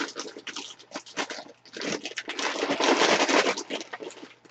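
Plastic snack bag crinkling and rustling as it is handled and hands reach inside it, loudest about midway.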